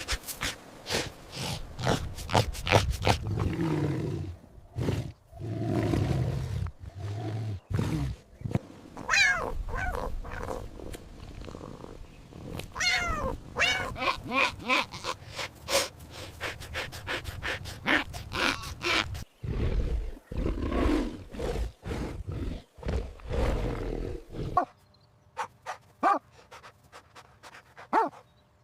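A big cat growling and roaring in a string of calls, some rough and low, others higher and arching in pitch; the calls fade out for the last few seconds.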